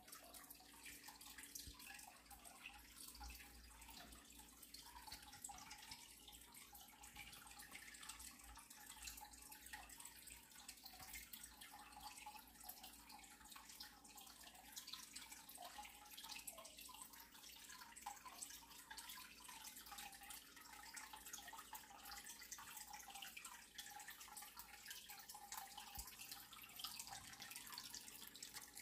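Faint, steady trickling of water with small drips, unchanged throughout.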